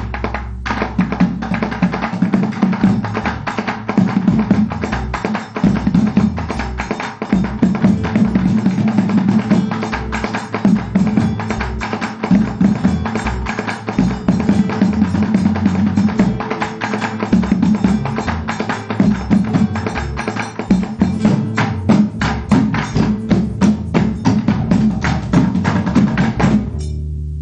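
A group of drummers beats upturned plastic buckets with drumsticks in a fast, dense rhythm, with an electric bass guitar underneath. The beat stops near the end.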